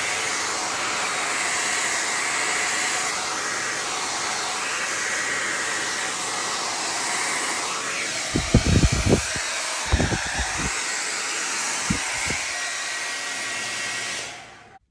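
Handheld hair dryer running with a steady rush of air, switched off and winding down near the end. A few low thumps are heard a little past the middle.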